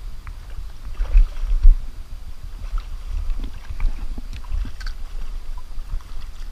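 Uneven low rumble on a body-worn action camera's microphone, with scattered light clicks and splashes as a hooked smallmouth bass is fought at the water's edge.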